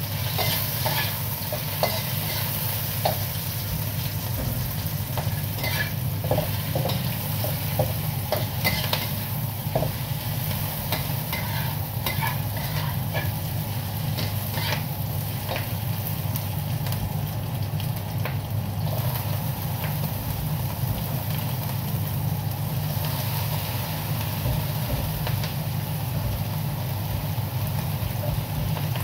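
Sliced onion, carrot and then red cabbage and bell pepper sizzling in oil in a wok over a gas flame, with a spatula scraping and clicking against the wok, mostly in the first half. A steady low hum runs under it.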